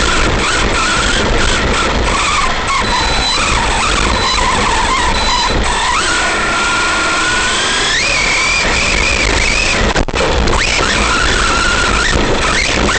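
Arrma Big Rock V3 RC monster truck's electric motor and drivetrain whining, the pitch rising sharply twice with the throttle and dropping between, over a steady rush of tyres on dirt and gravel and wind, heard from a camera riding on the truck.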